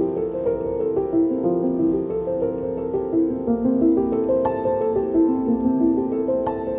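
Background music: a gentle piano piece, notes moving in a steady flowing pattern.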